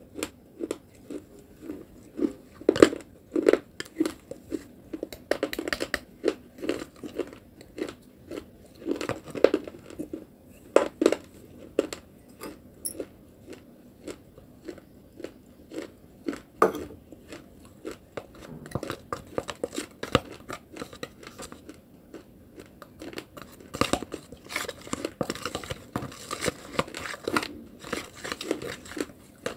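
A person chewing and crunching on a crumbly lump of baked clay, with irregular sharp crunches and bites throughout.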